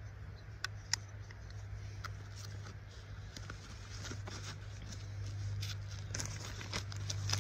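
Scattered light clicks and rustling from handling gear: a folding metal compass slipped into a fabric pouch and the pouch flap worked, over a steady low hum.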